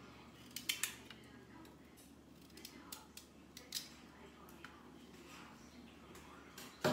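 Packet of chicken gravy mix being opened and handled over the pot: a few sharp crinkles and clicks, then a single loud knock at the very end.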